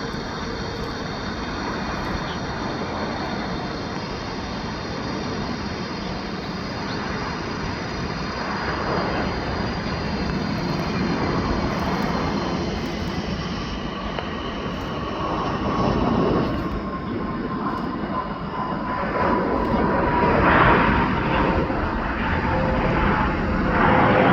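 Jet airliner engines running, a steady roar with a high whine. In the second half the whine sinks slowly in pitch and the roar grows louder in a few swells.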